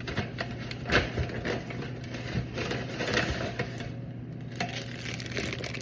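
Meal-kit packaging rustling and crinkling as ingredients are lifted out of the box and handled, with irregular small clicks and a sharper knock about a second in.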